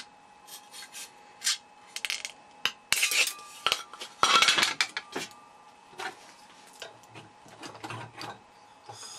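Irregular scraping and sharp clicks of a flat screwdriver working at the edge of a thin light-metal shielding cover, suspected magnesium, with metal tools knocking on the workbench. Right at the end a MAPP gas torch is opened and gas starts to hiss steadily.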